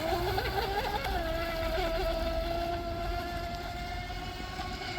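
Electric RC boat's 28 mm 2600 kV brushless in-runner motor, running on a 3S battery, whining as the boat runs. The pitch wobbles up and down in the first second, then holds steady.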